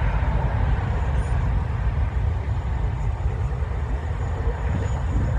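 McDonnell Douglas MD-11 trijet's three jet engines at takeoff power during the takeoff roll: a steady deep rumble and roar.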